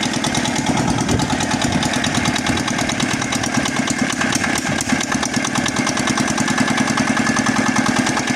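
Engine of a deep-well drilling machine running steadily at an even speed, with a fast regular pulse.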